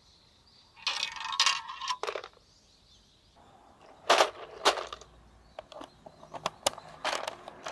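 Small plastic balls clattering into a clear plastic jar-shaped toy car, then a few sharp plastic clicks as the car is handled, and a run of light clicks as its plastic screw-on lid is turned.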